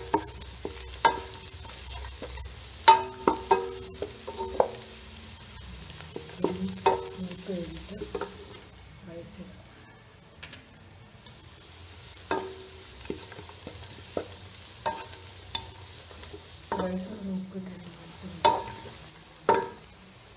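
Spatula stirring vegetables in a frying pan, knocking and scraping against the pan about once a second with a short ringing clank each time, over a faint sizzle of frying. The stirring eases off for a couple of seconds in the middle.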